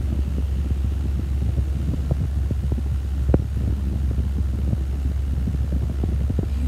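Steady low rumble with constant rubbing and knocking noises from a handheld phone being moved about close to the face. One sharper click comes about three seconds in.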